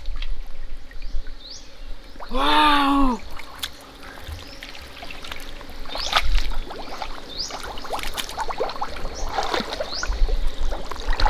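Shallow muddy water splashing and trickling as people wade and handle it, with many small splashes throughout. A short wordless vocal sound, rising then falling in pitch, comes about two seconds in.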